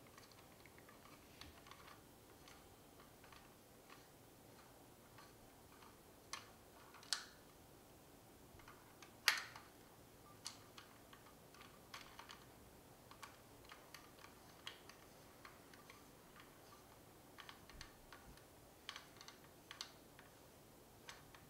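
Faint, scattered clicks and ticks of a small screwdriver turning screws out of a vintage toy's plastic sound-unit housing, with a few sharper clicks from about six to ten seconds in.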